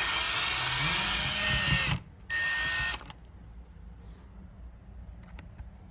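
Power driver with a Torx T8 bit spinning screws out of a Tesla Model S door handle assembly: a two-second whir, a short pause, then a second shorter burst, followed by a few light clicks.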